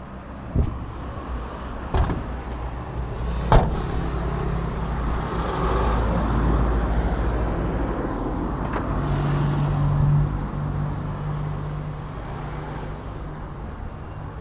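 Motor vehicle running, heard as a steady low hum with three sharp knocks in the first few seconds; the hum swells for a moment about two-thirds of the way in, then fades.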